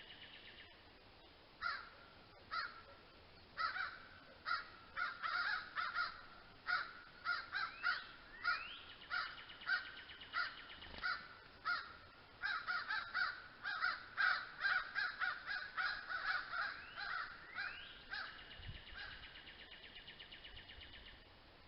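Birds calling: a long run of short, harsh, caw-like calls in quick succession, and twice a rising note that runs into a buzzy trill lasting a few seconds.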